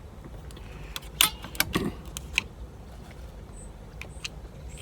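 Scattered light clicks and small knocks from an air rifle and its digital scope being handled, several close together in the first half and a couple more near the end.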